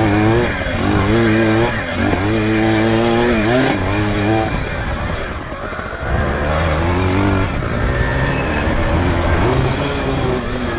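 Dirt bike engine heard from on the bike while racing, revving up and falling back again and again as the throttle is worked. About halfway through it eases off for a second or so, then picks up again.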